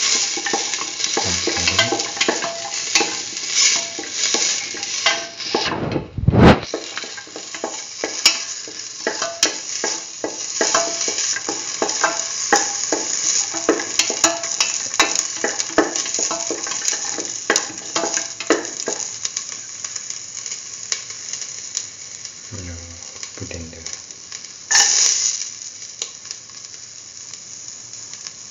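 Ginger, garlic and cashew pieces sizzling in hot oil in a stainless steel pan, with many light clicks and taps. A single heavy thump about six seconds in; the sizzle quietens in the last third, with a short loud hiss near the end.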